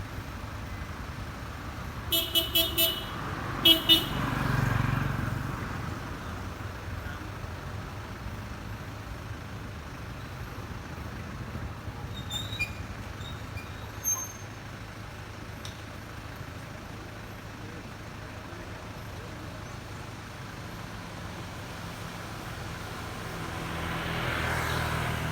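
Road traffic hum with a vehicle horn giving four quick toots about two seconds in and two more shortly after, then vehicles passing, one swelling up near the end.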